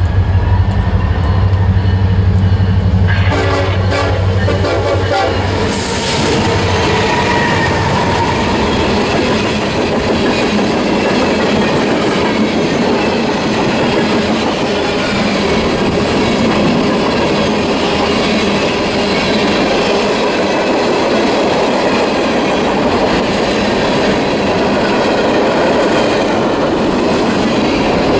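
A freight train passes at speed. The diesel locomotives go by in the first few seconds with a low drone and a brief horn. Then a long string of tank cars and covered hoppers rolls past, wheels clicking over the rail joints.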